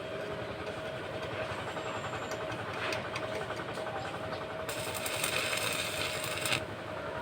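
Electric arc welding: the arc crackles and sizzles for about two seconds, starting a little past halfway, over a steady high hum.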